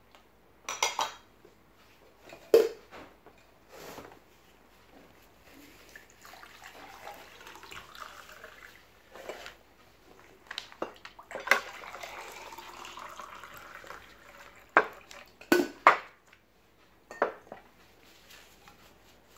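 Plates and dishes knocking and clinking on the dinner table, about nine sharp clinks spread out, with two stretches of water being poured into a glass in between.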